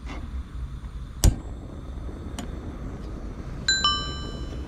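A sharp knock, then a faint click, then two light strikes on a metal object near the end that leave it ringing briefly, over a steady low rumble.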